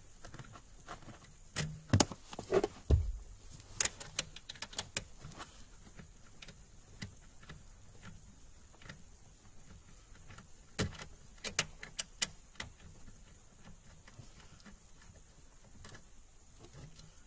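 A ratchet with an 8 mm socket clicking in short runs, with tool knocks against the plastic dash trim, as a nut is undone. The loudest knocks, including one dull thud, come about two to three seconds in, and another cluster of clicks comes about eleven to twelve seconds in.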